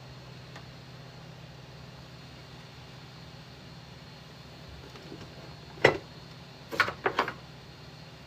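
A steady low mechanical hum. About six seconds in comes one sharp knock, the loudest sound, and about a second later a quick run of three more clicks or knocks, like objects being handled or set down.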